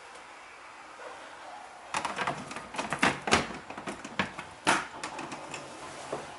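A run of irregular clicks and knocks, like hard objects being handled and set down, starting about two seconds in and thinning out near the end.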